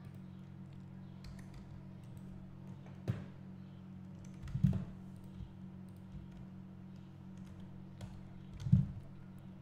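Scattered computer keyboard keystrokes and mouse clicks over a steady low electrical hum. A sharp click comes about three seconds in, and two louder dull thumps come about halfway and near the end.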